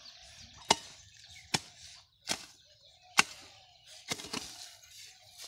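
Sharp chopping strikes, about five blows spaced a little under a second apart, as from a tool hacking at wood or ground.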